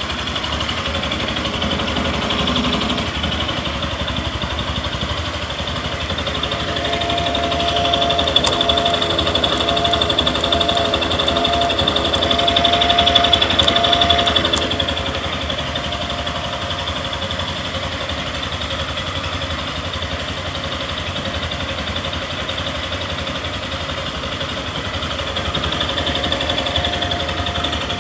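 Yamaha Fazer 150's single-cylinder air-cooled engine idling steadily just after a cold start, a little louder for a few seconds in the middle. The owner hears an annoying injection noise in it that fades once the engine warms up, and he is unsure whether it is normal.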